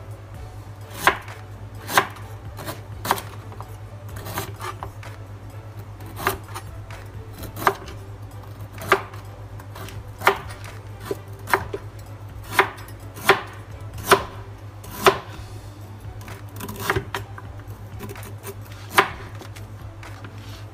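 Kitchen knife chopping through a mature, hard galangal rhizome on a plastic cutting board: single sharp knocks, irregularly spaced roughly a second apart, a few in quick pairs.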